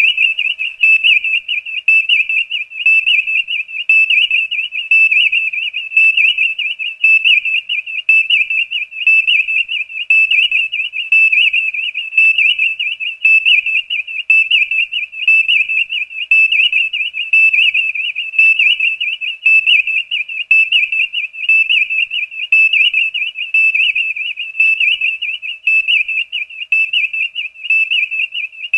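Star Trek Enterprise viewscreen sound effect: a steady, warbling, high-pitched electronic tone that pulses evenly about three times every two seconds, with no background noise.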